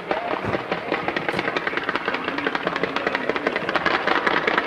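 Fireworks going off in a rapid, dense crackle of sharp pops, many a second, getting slightly louder.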